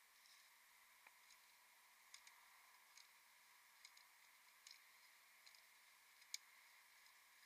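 Near silence, with a dozen or so faint, irregular short clicks; the sharpest comes about six seconds in.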